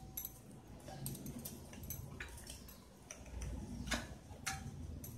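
Raw mutton pieces being tipped and pushed by hand from a plastic bowl into a stainless steel pot: faint scattered taps and clicks of meat and plastic against the steel, the loudest about four seconds in.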